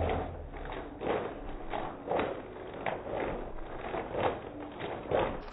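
Liquid sloshing hard in a plastic shaker bottle shaken by hand, about three shakes a second.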